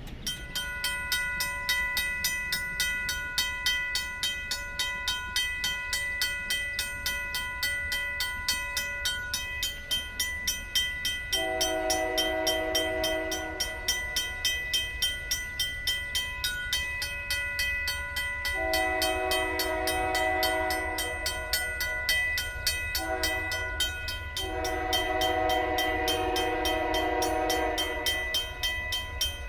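A RACO mechanical crossing bell starts ringing at once as the crossing activates, struck in a steady, rapid rhythm. From about 11 seconds in, the approaching Union Pacific freight locomotive's horn sounds a chord in two long blasts, a short one and a final long one: the standard grade-crossing warning.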